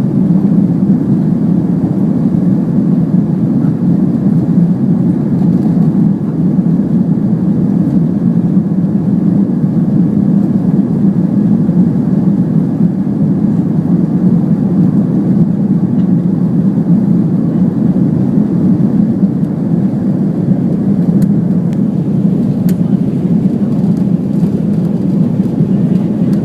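Steady jet cabin noise inside an Airbus A330-300: the low, even rush of the engines and airflow, with a faint thin whine riding above it.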